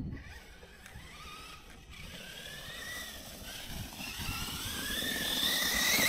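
Losi LMT Grave Digger RC monster truck's electric motor whining, rising in pitch and getting louder over the last few seconds as the truck speeds up.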